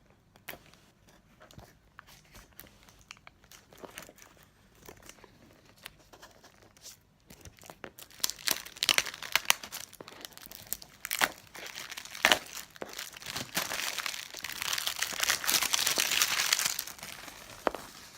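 A headphone package being opened by hand: scattered small clicks and rustles at first, then from about eight seconds in, dense crinkling and tearing of the wrapping, with a sharp snap around the middle and the loudest stretch near the end.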